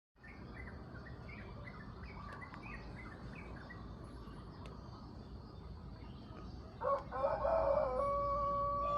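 A rooster crows once, a loud, drawn-out call starting about seven seconds in. Before it, a run of short bird chirps, about three a second, over a steady low background noise.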